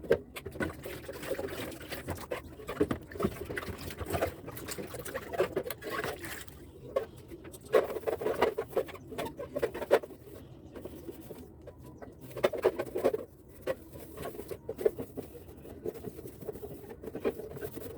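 Towel wiping and rubbing on plastic fridge shelves and trays, with irregular scratchy rubbing strokes and scattered light knocks and clatter.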